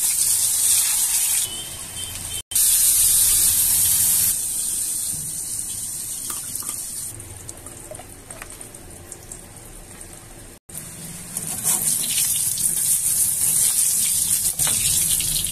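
Eggplant (brinjal) halves sizzling loudly as they fry in hot oil in a wok. The sizzle drops to a quieter hiss for several seconds in the middle and comes back strongly about two-thirds of the way through.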